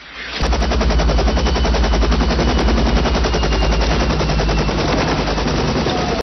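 Bell UH-1 Huey helicopter's main rotor chopping in a fast, even beat, coming in loud about half a second in after a brief lull.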